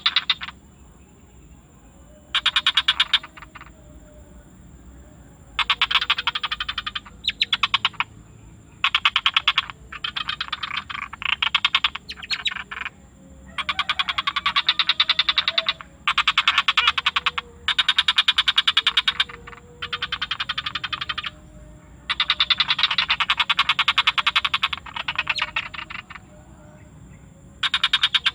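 Frogs calling in repeated bouts of rapid, even pulses, each bout lasting a second or two with short pauses between, over a steady faint high-pitched whine.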